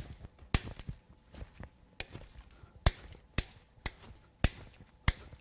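Hand ratchet loosening the connecting-rod cap lock nuts on a Jeep 4.0 inline-six, turned by hand to feel how tight they are. It gives a string of separate sharp metallic clicks and snaps, roughly one every half second, the loudest right at the start and about three seconds in.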